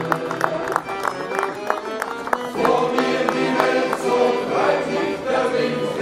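A sailors' choir and its accompaniment performing a sea shanty: held chords over a steady beat.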